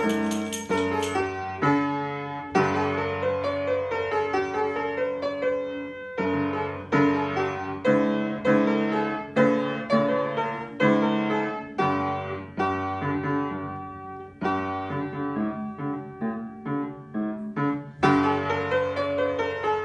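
Upright piano played by a young child practising a recital piece: a simple melody over held bass notes, in short phrases that restart every second or two.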